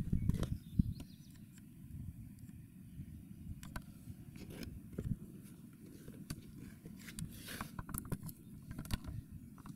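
Scattered light clicks and scrapes of parts being handled during disassembly of an old TV, with a brief rustling burst about seven seconds in, over a low steady rumble.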